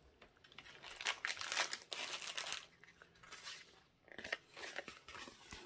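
Clear plastic packaging crinkling, with paper rustling, as a sheet of drill stickers and printed papers are pulled out and handled: irregular bursts, one longer run in the first half and a shorter one near the end.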